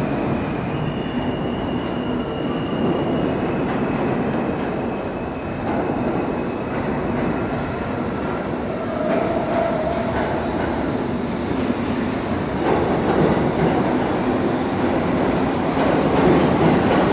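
An R68 subway train on the D line approaches and pulls into the station along the far track, with steady rumbling running noise and several thin wheel squeals. It grows louder near the end as the cars pass alongside.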